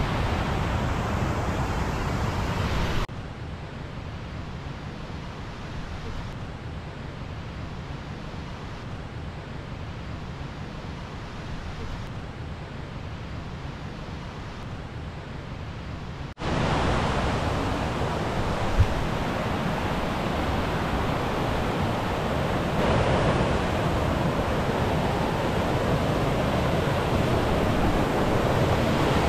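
Steady wind-like rushing noise, quieter for a stretch. About halfway in it is replaced by the louder steady rush of a fast-flowing mountain creek over rocks, with one short tap a little after the change.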